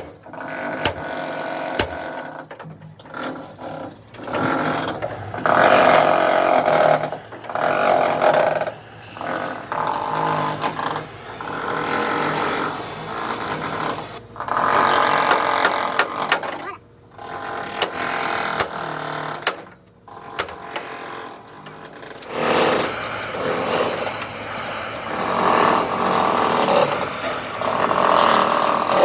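Power tool working on the metal of a truck body, running in repeated bursts of one to three seconds with short pauses between them.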